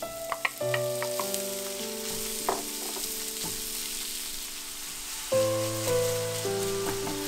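Minced beef sizzling in hot fat in a frying pan as it is tipped in and stirred with a wooden spatula, with a few sharp knocks in the first second or so. Soft background music plays along.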